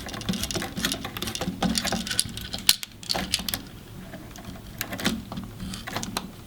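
Screwdriver tightening the brass terminal screw on a GFCI outlet with the black wire under it: a quick run of small clicks and metal scrapes, broken by a brief gap a little before halfway.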